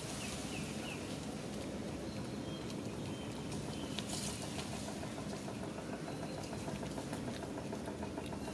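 A steady low mechanical hum, like an engine idling, with a few faint short high chirps over it.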